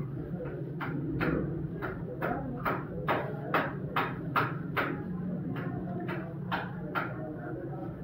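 Repeated short strokes of tool work on a radiator tank, roughly two or three a second, over a low steady hum.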